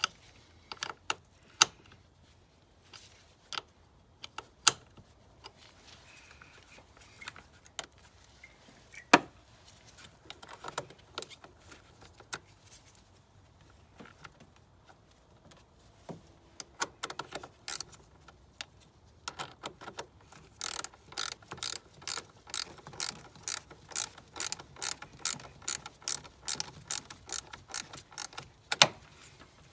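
Hand tools working on car battery terminals: scattered sharp metal clicks and clinks, then a quick, even run of clicks, about two or three a second, over the last several seconds.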